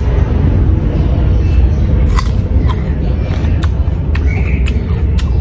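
Raw cucumber being bitten and chewed: a run of short, crisp crunches from about two seconds in, over a steady low rumble.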